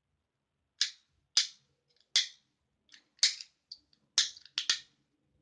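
Fidget cube's toggle switch flicked back and forth: about seven sharp clicks at uneven intervals.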